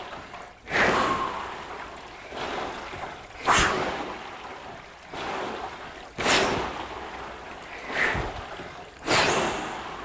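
Water-tank rowing machines whooshing as the paddles churn the water on each drive. A strong surge comes about every three seconds, with weaker ones in between, matching short quarter-slide and half-slide strokes.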